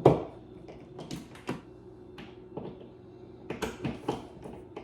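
Scattered light clicks and knocks from handling tools and parts at the wall: a sharper knock at the start, then several more spaced irregularly, over a faint steady hum.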